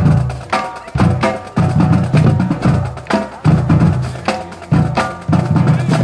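High school marching band playing live outdoors, with brass and woodwinds including a sousaphone, trumpets and saxophone, over drums. The drums keep a strong, steady beat.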